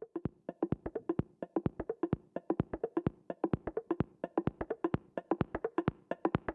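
Background music: a fast, busy rhythm of short, dry pitched knocks, several a second.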